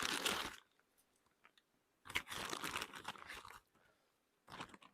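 Crinkling and crunching in three short spells, a paper coffee filter and silicone pour-over dripper being handled and set up over a cup.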